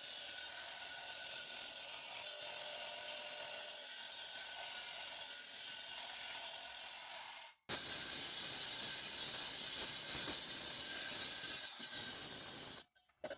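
Concrete-cutting saw blade grinding through concrete, a steady hissing noise. It cuts off abruptly for an instant about two-thirds of the way in, comes back louder, and stops shortly before the end.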